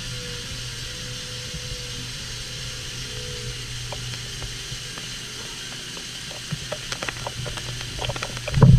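Doosan Lynx 220LMC CNC lathe turning 7075 aluminium: a steady machine hum under the hiss of spraying coolant. From about halfway through, coolant spatters against the enclosure window in growing ticks and knocks, the loudest knock coming near the end.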